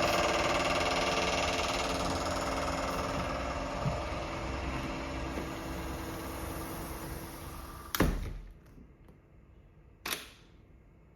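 Construction machinery for light rail works running with a steady engine hum that slowly fades. About eight seconds in a sharp bang cuts in, after which the machine noise is much quieter, and a second, smaller sharp click follows about two seconds later.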